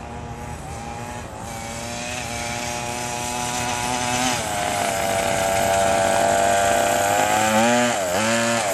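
Small two-stroke petrol engine of a 1/5-scale Kingkong RC monster truck running at a steady speed as the truck drives across grass, growing louder as it comes closer. Near the end the revs drop and pick up again twice.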